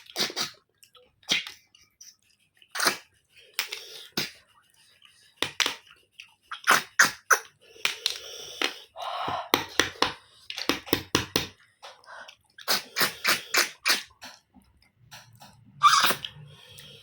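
Someone eating snails: a run of short, sharp sucking and clicking sounds at irregular intervals, about two dozen in all.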